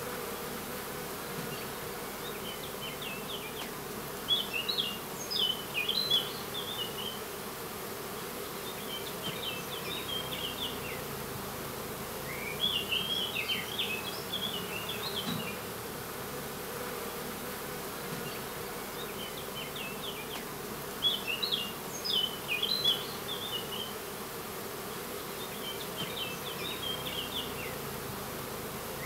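Steady hum of a honeybee colony flying at the hive entrances. Over it a songbird sings short chirpy phrases every few seconds, louder than the hum.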